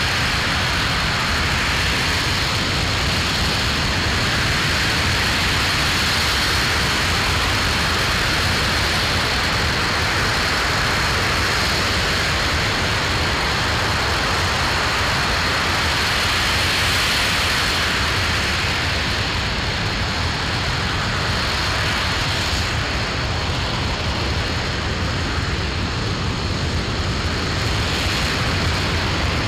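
Aerojet Rocketdyne RS-25 liquid-hydrogen/liquid-oxygen rocket engine firing steadily in a static hot-fire test: a continuous, even rush of noise with no breaks.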